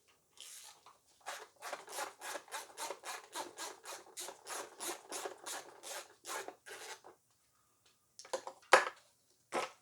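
A hand tool worked back and forth on the engine in quick rasping strokes, about three a second for some six seconds, followed by two or three sharp knocks near the end.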